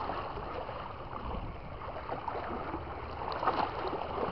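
Choppy sea water sloshing against a small boat's hull, a steady rush with a slightly louder splash about three and a half seconds in.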